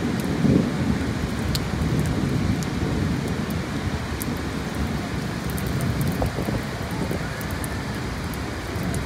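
Heavy rain falling steadily, under a low rumble of thunder that fades gradually over the first several seconds. Scattered sharp ticks of drops strike close by.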